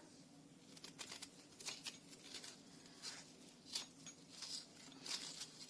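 Knife scraping and gouging out the flesh inside a raw turnip: a run of faint, irregular scraping strokes.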